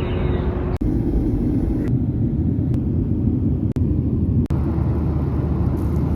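Steady low rumble of a moving vehicle, broken by a few brief dropouts, that cuts off suddenly at the end.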